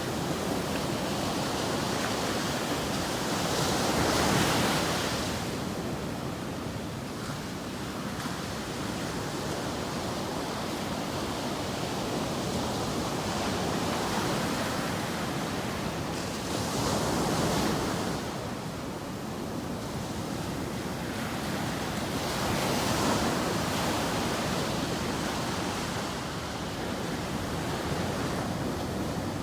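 Sea waves breaking on a beach, a steady wash of surf with three louder breakers, about 4 s in, around 17 s and around 23 s, with some wind on the microphone.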